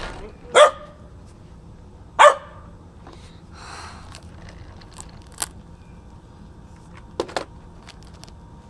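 A dog barks twice, about a second and a half apart, followed by a few light clicks and taps.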